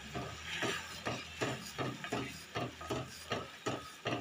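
Wooden spatula stirring a simmering rose-petal syrup in a metal pot, scraping against the pot in a regular rhythm of about three strokes a second.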